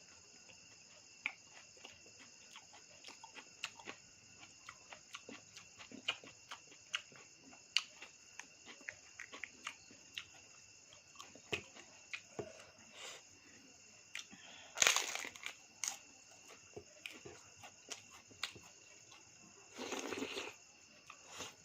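Close-up eating sounds, many short clicks and smacks of chewing, over steady cricket chirring in the background, with two louder bursts of noise, one past the middle and one near the end.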